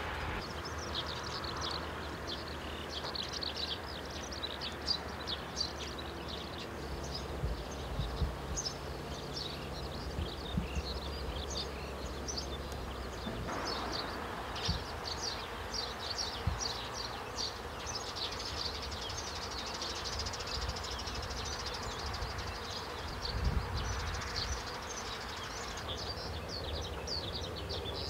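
Many small birds chirping and singing continuously in quick, high notes, over a low steady hum.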